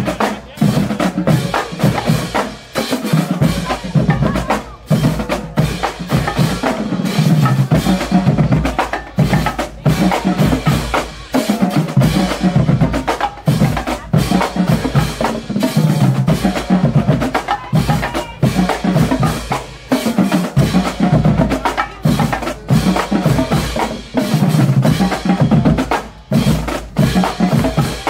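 Marching band drumline playing a cadence: snare drums, tenor drums and bass drums struck in fast, dense rhythms, with a few brief breaks between phrases.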